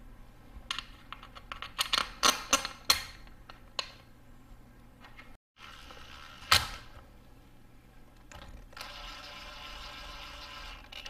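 Clutch cover screws being fitted on a motorcycle engine: a run of sharp metal clicks and clatter from handling screws and tools, one loud click after a short break, then about two seconds of a cordless screwdriver running a screw down near the end.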